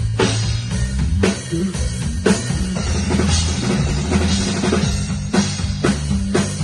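PDP drum kit played in a groove, with kick drum, snare hits and cymbal wash, over music with a bass line.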